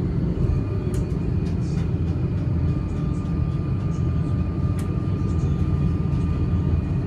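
DSB IR4 (Litra ER) electric multiple unit train: a steady low rumble with a faint, steady high-pitched tone and scattered small clicks.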